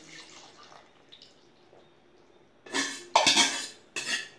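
Coconut milk poured softly into curry in a clay pot. Then, nearly three seconds in, a steel ladle scrapes and clinks against a steel bowl in three loud strokes.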